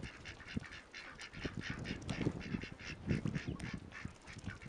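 Ducks and geese calling with short, irregular low quacks and honks, over a steady patter of small splashes as they bathe and dabble in a shallow muddy puddle.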